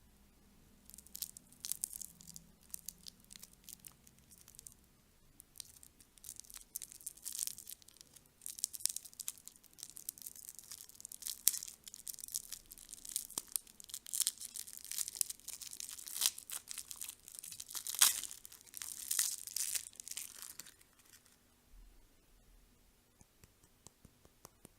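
Candy packaging being torn open and crinkled by hand: a long run of irregular, sharp crackles. The crackles begin about a second in and die away a few seconds before the end.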